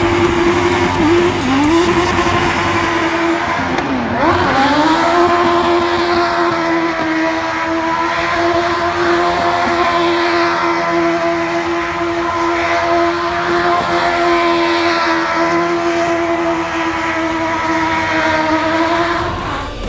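Stunt car's engine held at high revs as the car spins donuts, with tyres squealing and spinning on the asphalt. The revs dip and climb again about four seconds in, then stay steady until the sound cuts off near the end.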